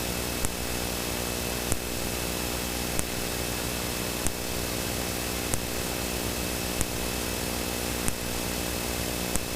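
Steady cockpit noise of a Cessna Citation V business jet on final approach: the hum and whine of its turbofan engines mixed with airflow noise. A short sharp tick repeats evenly about every 1.3 seconds throughout.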